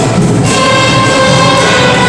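Large youth orchestra playing, with violins and cellos among the instruments and a new held chord coming in about half a second in.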